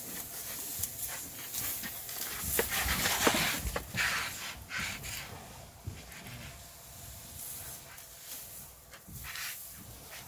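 African elephants moving right beside the vehicle: an irregular run of short noisy puffs and rustles, louder in the first half and softer in the second.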